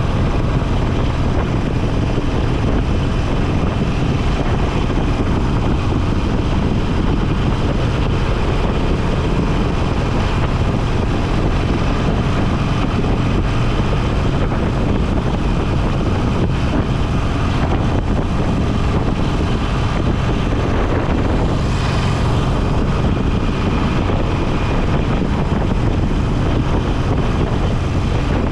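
Motorcycle engine running steadily at cruising speed, with wind rushing over the microphone. A brief rush of noise comes about three-quarters of the way through.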